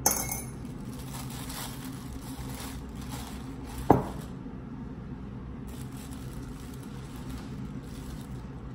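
Thin plastic bag crinkling as it is pulled down over a stainless steel mixing bowl, with a sharp clatter right at the start and a loud knock on the bowl about four seconds in.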